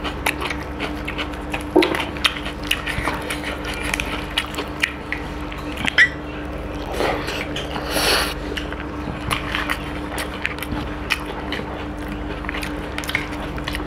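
Close-up eating sounds: chewing and lip smacking with a steady run of small wet clicks, as fingers mix rice and chicken curry and lift it to the mouth.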